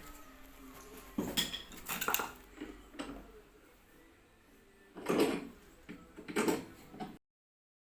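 Irregular knocks and clatters of hard objects being handled during woodworking, in a few short groups with quiet gaps between.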